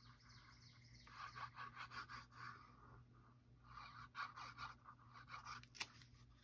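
Faint rustling and scraping of cardstock being handled and slid across a work surface, in two short spells, with one small sharp click near the end.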